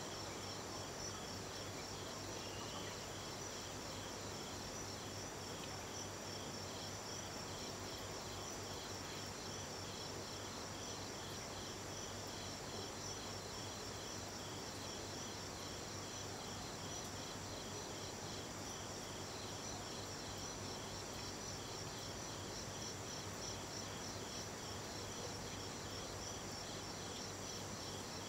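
Night insects chirping steadily: several rapid, evenly repeated pulse trains at different high pitches, over a steady low background hiss.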